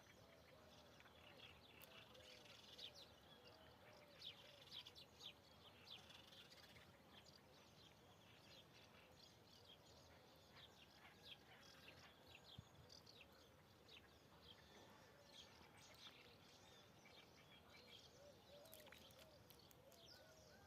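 Faint outdoor birdsong, many short high chirps scattered throughout, with a fainter low call repeating in short runs underneath, over a steady hiss.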